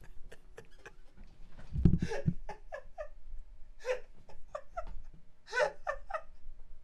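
A man laughing so hard he can barely breathe: runs of short, high-pitched squeaking laughs, with a thump about two seconds in.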